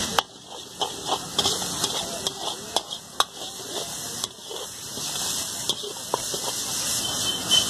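Metal ladle clanking and scraping against a wok as fried rice is stir-fried, with a steady sizzle from the hot wok. The clanks come sharply and irregularly, roughly one to two a second.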